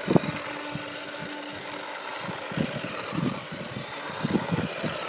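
A small Arduino-built Bluetooth RC car driving, its electric drive motors running with a steady hum and irregular low knocks and thumps.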